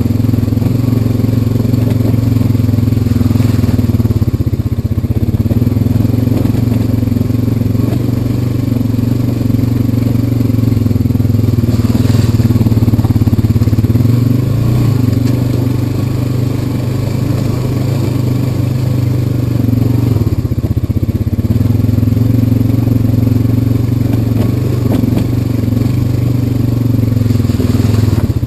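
Honda Rancher 420 ATV's single-cylinder four-stroke engine running steadily while the quad rolls along a dirt trail. The level dips briefly a little past halfway.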